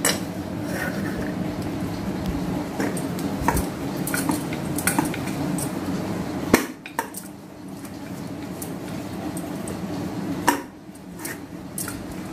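Steel thali plate and rolling pin being handled on a tiled counter: scattered metallic clinks and scrapes, with two sharper knocks, one about halfway through and one near the end, over a steady low hum.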